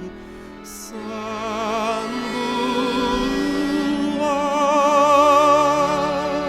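Music: a singing voice holds long notes with wide vibrato over a steady backing, with a short breathy hiss about a second in.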